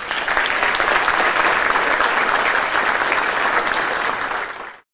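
Audience applauding, cutting off suddenly near the end.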